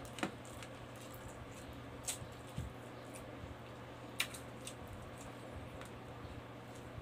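Close-up eating sounds: chewing of rice and pork adobo eaten by hand, with scattered short wet smacks and clicks, the clearest about two seconds apart.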